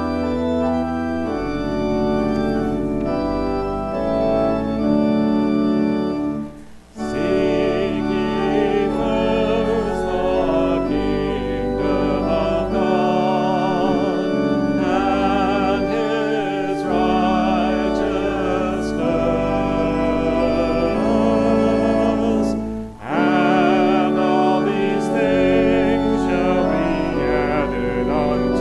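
Church organ playing a hymn in sustained chords that change in steps, with two short breaks between phrases, about seven seconds in and again about two-thirds of the way through.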